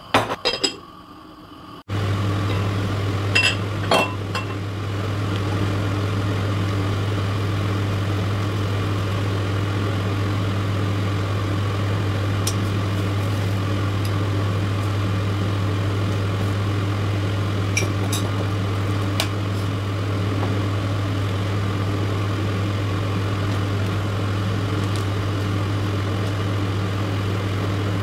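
A steady low mechanical hum cuts in about two seconds in and runs on evenly. Over it come a few light clinks of a metal spoon against glass.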